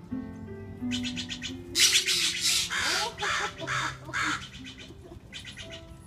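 Crows cawing, a series of harsh, loud calls bunched in the middle, with shorter rattling calls before and after, over background music.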